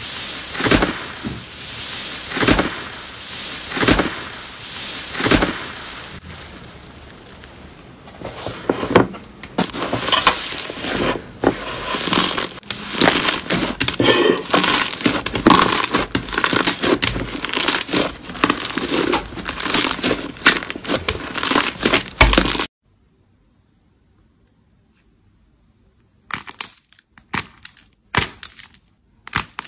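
Hands pressing and stretching slime. First come soft squishes about every second and a half, then dense crackling and popping as the slime is pulled and folded. After a sudden cut to silence, sparser soft crackles return near the end as a soft clay ball is squeezed and pulled apart.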